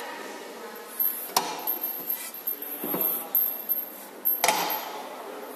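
Clicks and knocks of the fast-lock latches being closed and the LED display cabinets being handled, a handful of sharp knocks with two louder ones, about a second and a half in and about a second before the end, amid rubbing and handling noise.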